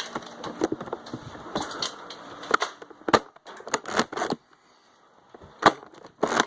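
Irregular sharp clicks and clacks of Nerf foam-dart blasters being handled, primed and fired, over rustling movement in the first couple of seconds.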